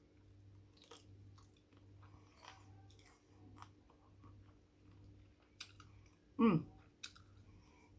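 Close-up chewing of king prawns: soft, scattered mouth clicks and smacks, with a brief falling vocal sound about six and a half seconds in.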